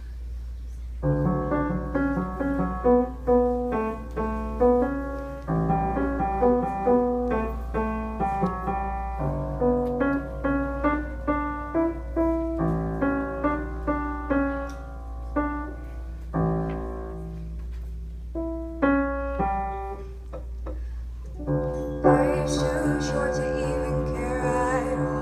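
Piano playing a song's introduction: separate notes and chords starting about a second in, with brief gaps near the middle and fuller, louder playing near the end. A steady low hum runs underneath.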